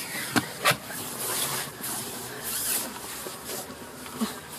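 Rustling and rubbing noise from the phone's microphone being swung about, with hiss swelling and fading, and two short sharp clicks about half a second in.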